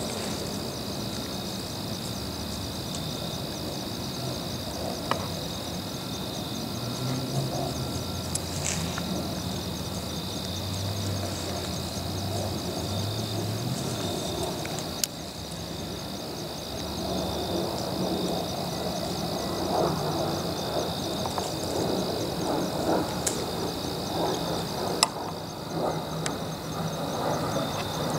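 Steady, high-pitched evening chorus of insects trilling in the woods, with faint rustling in the leaf litter and a few sharp clicks. A low distant hum comes in around the middle.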